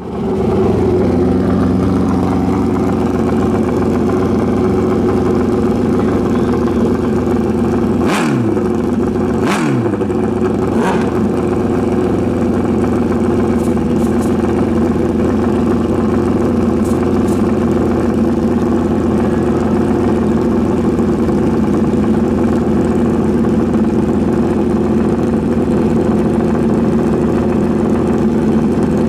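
Drag-racing motorcycle engines idling loudly and steadily at the starting line, with two short sharp sounds about eight and nine and a half seconds in.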